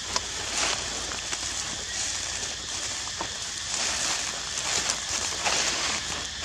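Dry leaf litter crackling and rustling underfoot, with scattered small crunches as feet move over the dead leaves.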